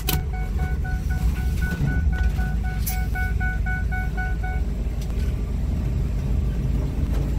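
Inside a moving van: steady engine and road rumble, with a dashboard warning chime beeping about four times a second that cuts off after about four and a half seconds.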